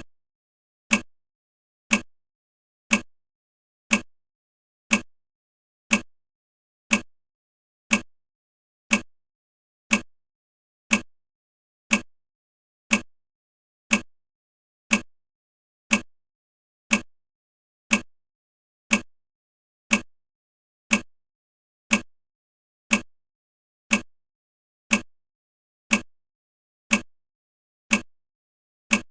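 Countdown timer's ticking sound effect, one short sharp tick each second at a perfectly even pace, marking the seconds of the countdown.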